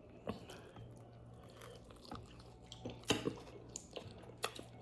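Close-up eating sounds: a person chewing food with a few short, sharp mouth clicks, the loudest about three seconds in, over a steady low hum.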